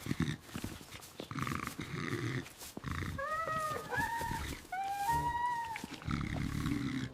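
An animal grunting, with a run of short squeaky calls that rise and fall in the middle.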